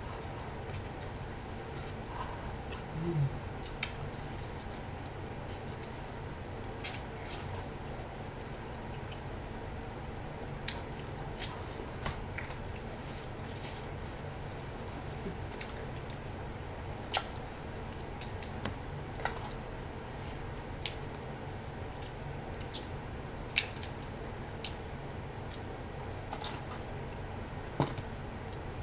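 Scattered sharp clicks and snips of eating and of kitchen scissors cutting snow crab legs, over a steady background hum.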